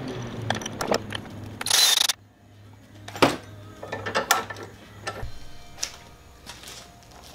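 Ratchet clicking as a bolt is run through steel mount plates held in a bench vise, with a short loud burst of noise just before two seconds in that cuts off abruptly, followed by scattered metal clinks and taps of parts being handled.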